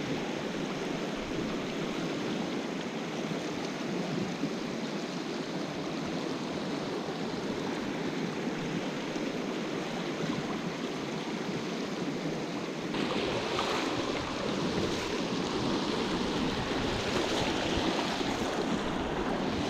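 Small freestone mountain stream rushing over rocks, a steady wash of water; about 13 seconds in it gets a little louder and brighter.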